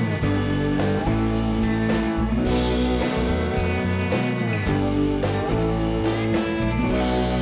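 Background music: a guitar-led rock track playing at a steady level.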